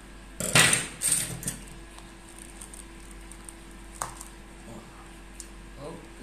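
Durian husk being split apart by hand: a loud rough crack and tear about half a second in, followed by a few lighter clicks and creaks as the spiky halves are pulled open.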